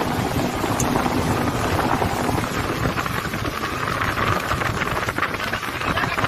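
Patrol speedboat running fast over open water: engine and water noise mixed with heavy wind buffeting on the microphone.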